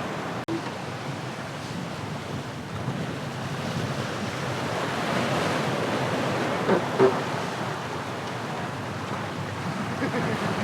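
Wind and water rushing past a VO65 racing yacht under sail, a steady hiss and wash, with a couple of brief louder sounds about seven seconds in.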